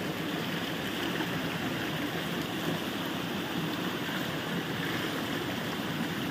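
A thin stream of water pours steadily from the rocks and splashes into a shallow creek. A black rubber shoe is held under the falling water to rinse it.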